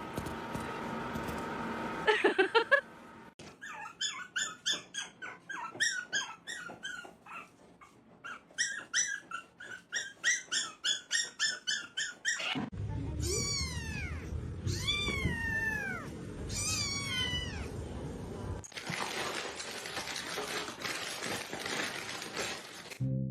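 Kittens mewing: a quick run of short high-pitched mews, then several longer meows that fall in pitch.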